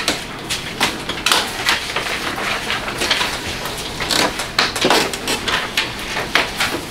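Sheets of paper rustling and being shuffled on a tabletop, with irregular small clicks and knocks.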